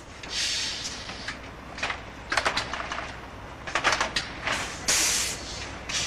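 Solenoid valves on a laundry sheet-ironing machine releasing short hissing blasts of compressed air to blow the sheets flat, several in a row, the longest near the start and about five seconds in. Clicks and a low steady rumble from the machine run underneath.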